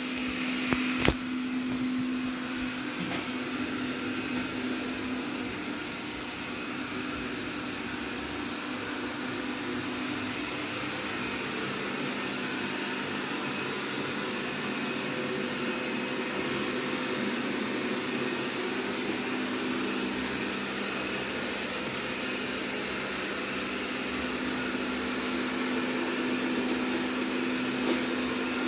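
Rowenta X-plorer Serie 60 robot vacuum running: a steady motor whir with a low hum, and a couple of sharp clicks about a second in.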